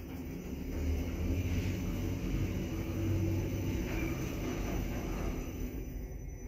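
Kleemann machine-room-less traction elevator car travelling up, heard from inside the cab: a steady low rumble that builds over the first second as the car gets under way and eases off near the end as it slows.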